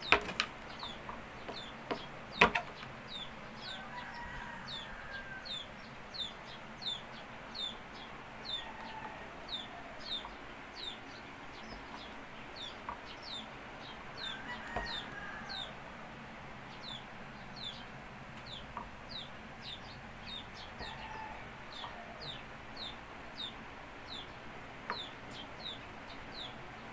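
A bird cheeps over and over, short high falling notes about two a second, with a few softer lower calls like a chicken clucking. A kitchen knife chopping a block of coconut sugar knocks sharply on a plastic cutting board twice in the first few seconds.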